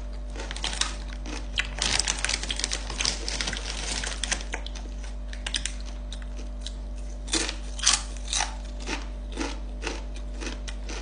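Doritos tortilla chips crunching as they are bitten and chewed, with crinkling of the chip bag: a dense run of crisp crackles, then a few louder separate crunches about seven to nine seconds in.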